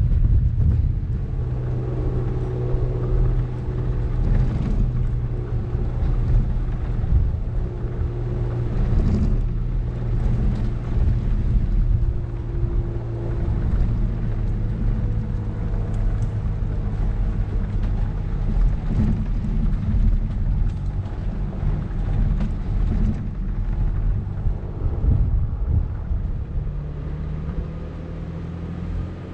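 Vehicle driving on a gravel dirt road: a steady engine drone over tyre rumble, with wind on the roof-mounted camera's microphone. There are a few short knocks along the way.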